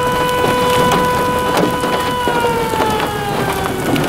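An outdoor warning siren sounds one steady tone that starts to fall slowly in pitch about halfway through. Raindrops tap sharply on the microphone throughout.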